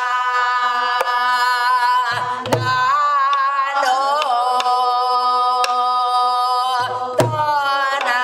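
A woman singing Korean pansori-style vocables in long held, wavering notes, accompanying herself on a buk barrel drum. Deep strokes on the drumhead come about two seconds in and again near the end, with sharp stick clicks on the drum roughly once a second between them.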